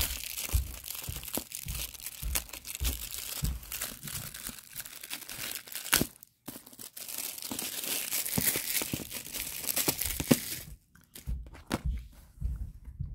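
Plastic shrink wrap being torn and peeled off a Blu-ray case, crinkling and crackling for about ten seconds with a brief pause partway. After that come quieter handling noises, with a few light clicks and taps of the plastic case.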